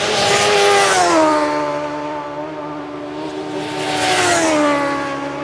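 Racing superbike engines at speed, loud as a bike goes by about a second in and again about four seconds in, the engine note dropping after each peak.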